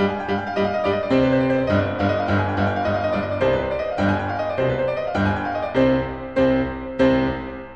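Background piano music: a quick run of notes that slows near the end to a few separate, louder chords left to ring out.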